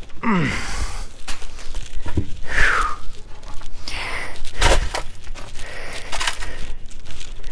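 Rustling and crunching of footsteps over dry, leaf-strewn dirt, with many small clicks. A short falling call sounds near the start and another about two and a half seconds in.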